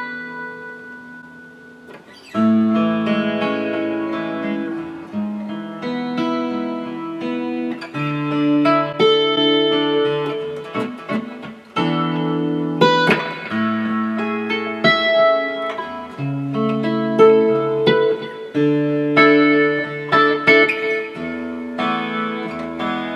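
Martin GPC PA3 acoustic-electric guitar played: a chord rings out and fades, then about two seconds in a steady run of picked notes and chords in A major starts up.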